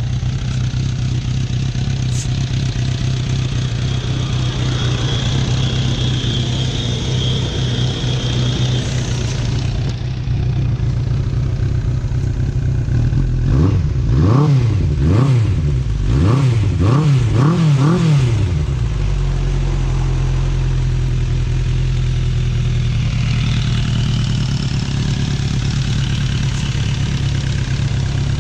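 Suzuki Inazuma 400's inline four-cylinder engine idling steadily. Midway it takes a series of quick throttle blips, each rev rising and falling, then settles back to a smooth idle.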